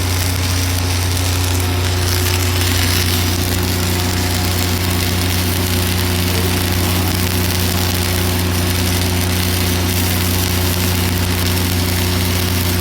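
Steady low machine hum with a constant hiss over it, from running welding-shop equipment.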